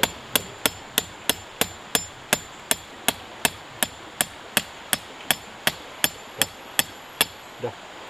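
Hammer blows in a steady, even rhythm, about three strikes a second, each a sharp crack. The hammering stops near the end.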